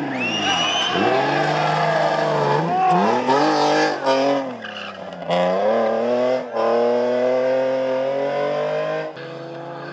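Hill-climb race car engine accelerating hard up through the gears, its pitch climbing and then dropping at each shift, with a brief high squeal about half a second in. About nine seconds in, the engine note falls away to a lower, steadier sound.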